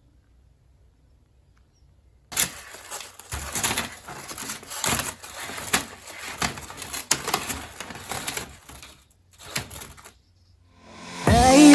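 Irregular rustling with light knocks and clicks, like things being handled or fabric being moved. It starts after about two seconds of silence and stops shortly before the end.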